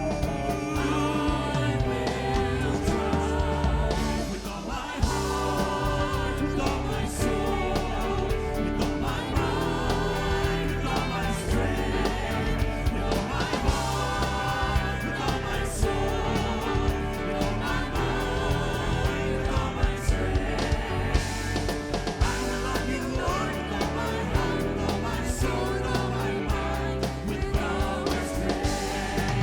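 Church worship band and singers performing a praise song, with sung vocals over steady instrumental accompaniment and a regular beat.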